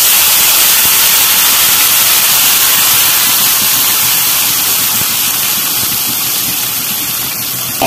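Ground red chili sambal frying in hot oil in a wok: a loud, steady sizzle that eases slightly toward the end.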